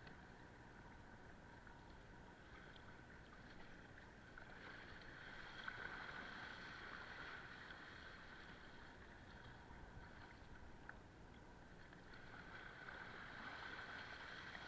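Faint water sound from a small paddled boat moving through choppy water, swelling louder about a third of the way in and again near the end.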